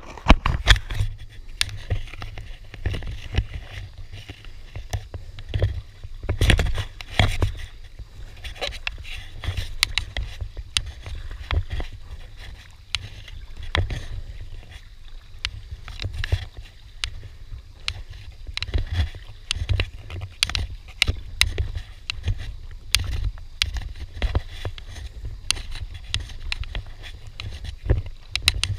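Paddling an Itiwit 1 inflatable kayak: the double-bladed paddle dips and splashes into the water stroke after stroke. Water sloshes and drips against the hull in irregular splashes and clicks over a steady low rumble.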